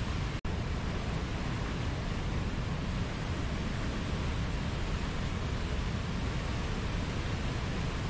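White-water river rapids rushing steadily over rocks. The sound cuts out for an instant about half a second in.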